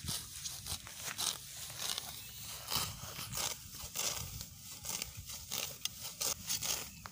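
Grass being pulled up and torn by hand, with a string of irregular short ripping and rustling strokes.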